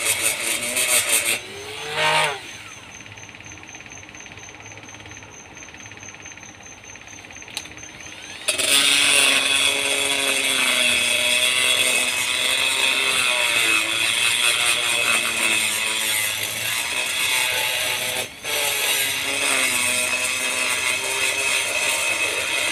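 High-speed rotary grinder cutting into the exhaust port of a Vespa cylinder block, its whine wavering in pitch as the bit bites into the metal. It stops about a second and a half in, is off for several seconds, and starts grinding again about eight and a half seconds in, with a brief drop near the end.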